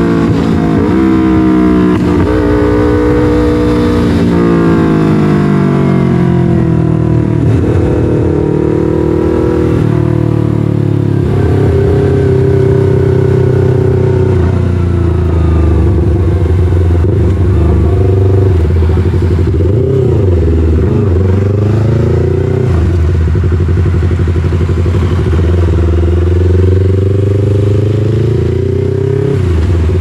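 Yamaha MT-03's 321 cc parallel-twin engine running through an SC-Project full exhaust while being ridden. The engine note falls over the first several seconds, then holds fairly steady at moderate revs, with a brief dip about two-thirds through and a slight rise near the end.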